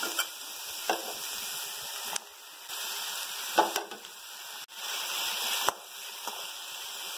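Shallots, drumstick pieces and green chillies sizzling steadily in hot oil in an aluminium pan, with a few short clinks and scrapes from a steel spoon stirring. Tomato pieces go in partway, and the sizzle dips and then picks up again.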